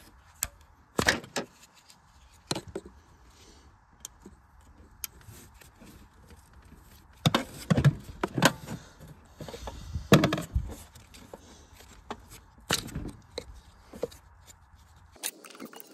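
Irregular clicks, knocks and scrapes of hand tools and metal parts as the EGR valve on a Volkswagen TDI diesel engine is unscrewed and worked loose. The loudest knocks come a little past halfway through.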